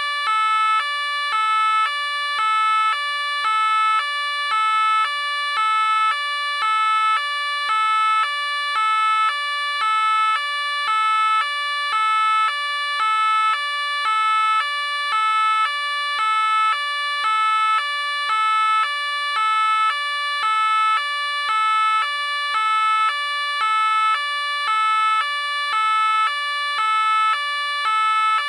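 French police car two-tone siren sounding continuously, two notes alternating evenly high and low, a little over a second per pair, with no change in pitch or loudness.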